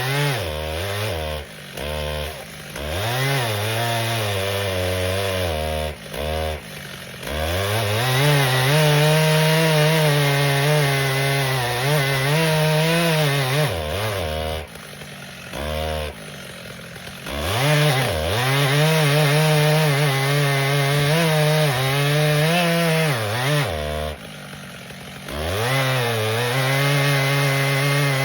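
Stihl MS 881 two-stroke chainsaw cutting rounds from a large maple log at full throttle. Several times it drops back to idle and then revs up again into the cut.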